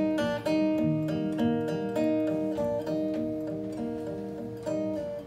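Solo acoustic guitar played live: an instrumental passage of picked notes, about two a second, ringing into one another.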